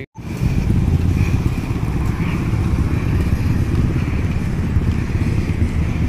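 City street traffic: cars and motorcycles running on the road, a steady rumble.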